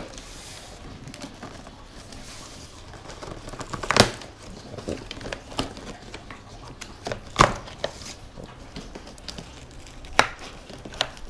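A large cardboard box being opened by hand: scattered tearing and rustling of cardboard, with three louder sharp rips spread through.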